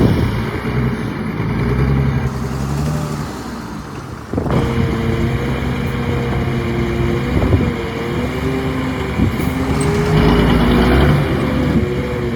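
Heavy diesel engines of earthmoving machinery running under load, their pitch drifting up and down. The sound changes abruptly to a different engine note about four seconds in.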